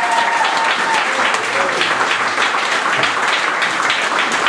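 Audience applauding steadily, a dense patter of many hands clapping at the close of a stand-up set.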